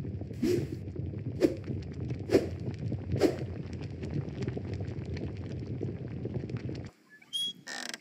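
Hoofbeats sound effect: slow hooves knocking about once a second over a low steady rumble, cutting off about seven seconds in. Brief high gliding tones follow near the end.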